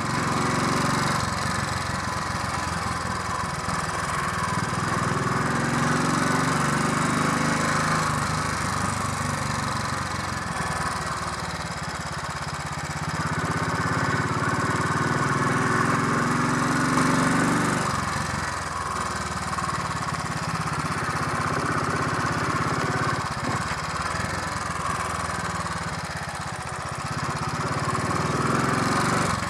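Royal Enfield 500 Electra X's single-cylinder four-stroke engine running on the road, its note rising and falling as the bike speeds up and slows, with a sharp drop about eighteen seconds in. The engine is being warmed up on the ride.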